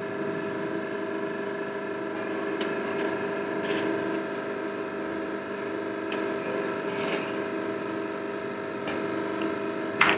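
Steady mechanical hum with several steady tones under a roti cooking on a tawa, with a few light clicks of a spatula against the pan and one short, louder scrape near the end as the roti is handled.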